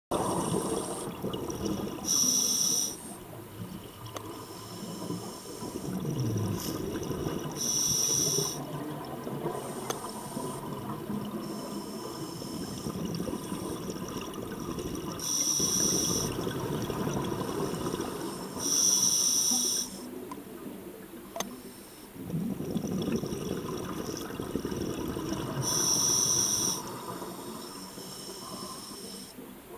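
Scuba regulator breathing underwater: a short, high hiss of air with each inhale, five times, followed each time by the rumbling, bubbling exhale.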